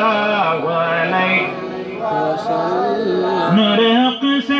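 A man's voice singing a slow, drawn-out melisma of a durood (salutation on the Prophet) through a microphone, holding long notes with ornamented wavering, the pitch stepping up about three and a half seconds in.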